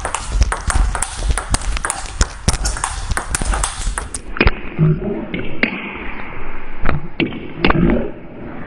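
Table tennis rally at fast pace: the celluloid-type ball clicking sharply off the bats and the table in quick succession. The clicks turn duller about four seconds in.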